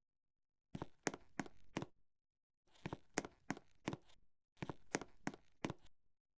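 Clusters of sharp knocks and clicks, four or five in quick succession, coming in three groups with silent gaps between them.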